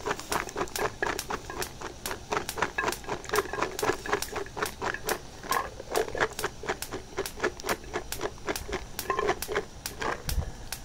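A quick, steady run of light clicks and pops from a pot of green peas on a gas stove, about four or five a second.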